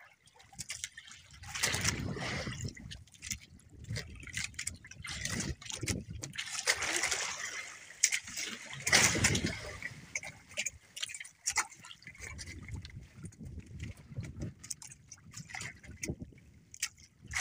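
Sea water splashing and sloshing at the side of a small outrigger boat as a wet nylon fishing line is hauled in hand over hand, with dripping and scattered sharp knocks. The splashing comes in uneven swells every second or two.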